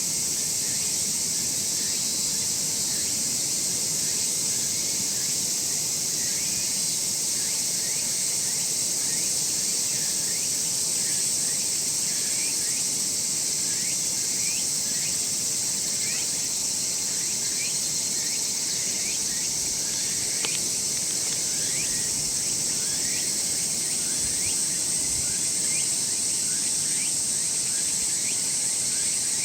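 Steady high-pitched insect chorus, with many short chirps repeating through it.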